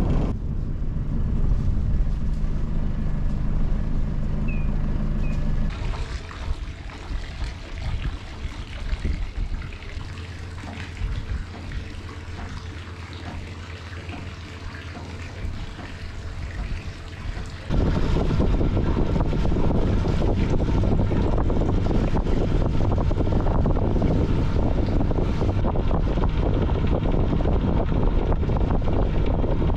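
A sailing yacht's inboard engine running steadily at low speed, with water trickling. The sound changes abruptly twice, and from about two-thirds in, loud wind buffets the microphone over the engine and water.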